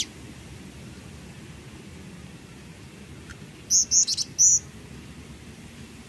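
Bar-winged flycatcher-shrike (jingjing batu) calling: one sharp, high note at the start, then about four seconds in a quick burst of about five short, high-pitched notes, over a steady low hiss.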